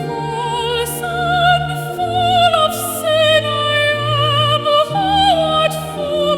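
Slow hymn sung by a solo voice in an operatic style, the melody carried with wide vibrato over sustained accompaniment chords.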